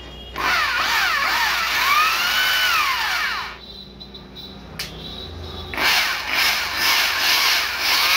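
Bosch GBH 2-20 720 W hammer drill switched on and run twice in a test. The first run is a whine that rises and then sinks as the motor spins up and coasts down. The second run, about two seconds later, is rougher and rattling. The drill is under diagnosis: the repairer says left/right (forward/reverse) does not work and it runs only one way.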